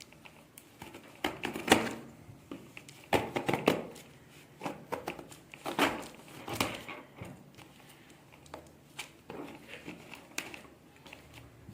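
A pen being used to pierce and rip open parcel packaging: irregular scratches, rips and crinkles of the wrapping, busiest in the first seven seconds and sparser towards the end.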